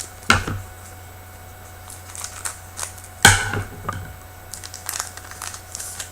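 A hockey card pack's wrapper crinkling and being torn open, with crackly rustling throughout. There is a sharp crackle just after the start and a louder one about three seconds in.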